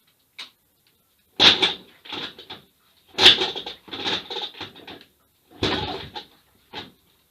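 IZh Planeta's single-cylinder two-stroke engine being kicked over with the kick-starter, a series of short clattering bursts roughly a second apart, none of which catches.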